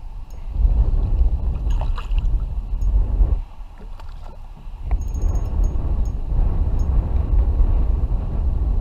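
Wind buffeting the action camera's microphone as a loud, fluctuating low rumble that dips for a moment near the middle. Water sloshes against the kayak, and a hooked fish splashes at the surface beside the hull.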